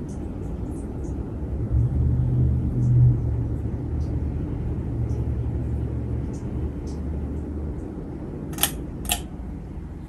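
Casablanca Delta II ceiling fan running, its Samsung K55 motor, fitted with new bearings, giving a steady low hum and rumble. The lowest hum drops away about eight seconds in, followed by two sharp clicks about half a second apart.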